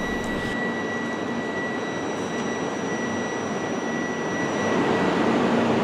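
E2 series Shinkansen train standing at the platform: a steady hum and hiss from its running equipment, with a thin high whine that stops near the end.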